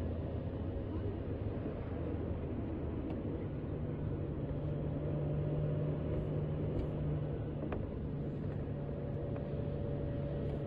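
Steady engine and road noise heard from inside a moving vehicle's cabin. A low engine hum rises in pitch about three seconds in, and a few faint ticks come through.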